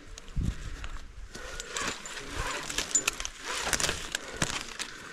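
Palm fronds rustling and climbing gear clinking as a climber works his rope and carabiners in a palm crown: scattered metallic clicks, brushing leaf noise, and a low thump about half a second in.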